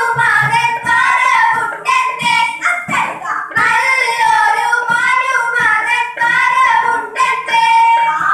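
A group of girls singing a song together, with a small hand drum beaten in time underneath.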